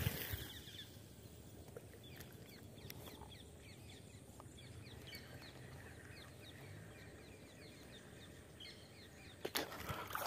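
Faint, quick chirping calls of birds, many short notes in a row, over a quiet marsh background, with a brief knock right at the start. About nine and a half seconds in, sudden loud splashing and handling noise breaks in as a snakehead strikes the lure.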